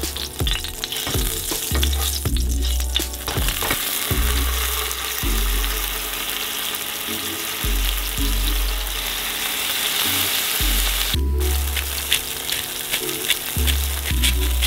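Skin-on perch fillets sizzling in hot olive oil in a nonstick frying pan. The hiss builds about two seconds in and cuts out briefly about eleven seconds in, over background music with a steady bass line.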